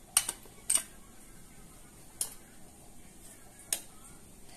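A few sharp clicks and taps from kitchen utensils being handled: two close together at the start, another just after, then single ones about two seconds in and near the end.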